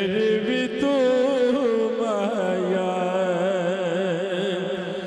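A man singing a Punjabi naat, one long wavering melismatic line with vibrato, over a steady low drone.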